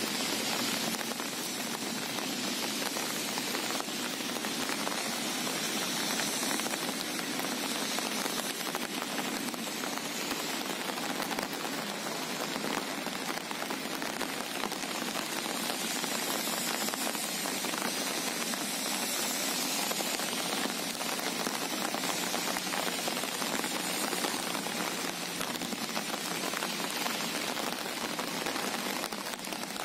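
Steady rain falling on calm sea water at the shore: an even hiss with no single drops standing out.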